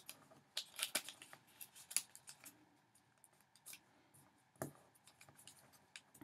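A square of origami paper being folded and creased by hand: faint, crisp crackles and rustles as the corners are folded into the middle and pressed flat, with a soft thump about four and a half seconds in.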